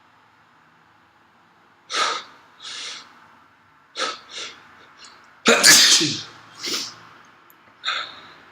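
A person sneezing: a string of short sneezes and sharp breaths, with the loudest and longest sneeze a little past halfway.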